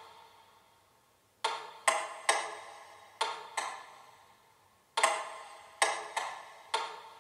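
Sparse percussive score of sharp struck notes, each ringing briefly and dying away over about a second. The strikes come in irregular clusters of two or three, nine in all, with short quiet gaps between the clusters.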